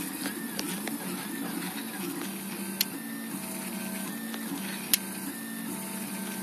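Portabee RepRap 3D printer printing: its stepper motors whine in tones that jump from pitch to pitch and sweep up and down as the print head and bed move. Two sharp clicks stand out, about three seconds in and about five seconds in.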